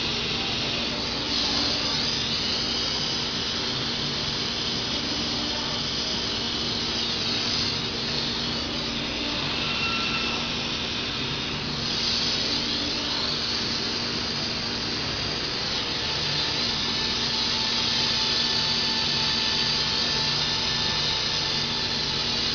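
Machinery running steadily, with a constant low hum and a hissing whoosh that swells and fades every five or six seconds.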